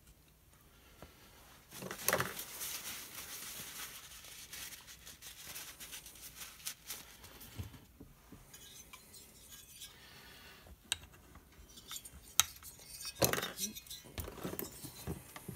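Light metallic clinks, scrapes and clicks of small chainsaw engine parts being handled on a workbench, as piston rings are set and the new cylinder is readied. There is a louder knock about two seconds in and another near the end.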